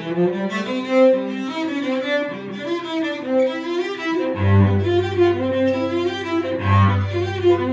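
Solo cello, bowed, playing a quick run of notes in its middle and upper range; a low note sounds under it about halfway through and again near the end.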